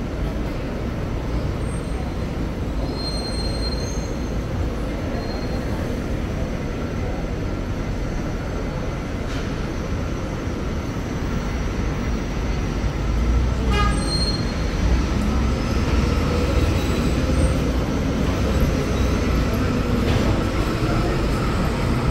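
Steady, loud city rumble of heavy traffic or rail, a low roar that grows louder about halfway through, with faint high squealing tones over it.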